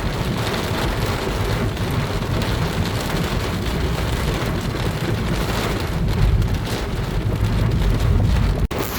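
Heavy rain falling on a car: a dense patter of drops over a deep low rumble that swells about six seconds in. The sound cuts out for a moment near the end.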